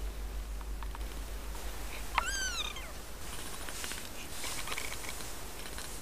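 A Siamese kitten gives one short, high mew that falls in pitch about two seconds in, over a steady low purr from the nursing litter.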